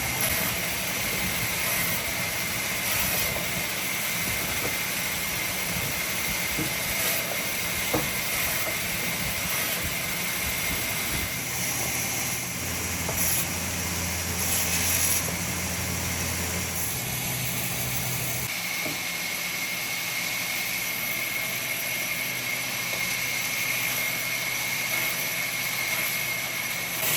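Woodworking machinery running steadily: a continuous motor noise with a thin high whine. A deeper drone joins about twelve seconds in and drops out about six seconds later.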